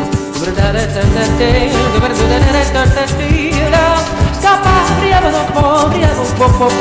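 Live looped music played back from a Boss RC-505 loop station: a steady beat under layered, wordless vocal lines.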